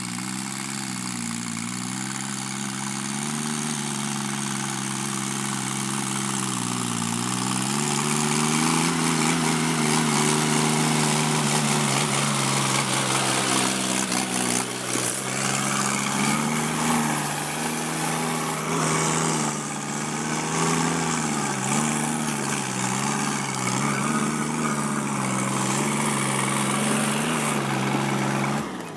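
Sonalika DI 50 RX Sikander tractor's diesel engine running under load while it drives a rotavator through a wet paddy field for puddling. The engine's pitch sags and recovers several times as the load changes, and the sound grows louder over the first several seconds as the tractor comes close.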